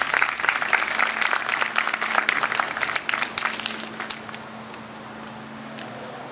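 Audience clapping, dense and steady, then thinning out and dying away about four seconds in.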